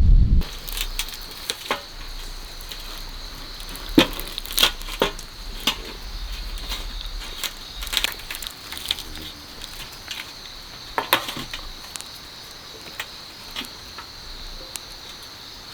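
Irregular sharp crackles and clicks over a steady high hiss.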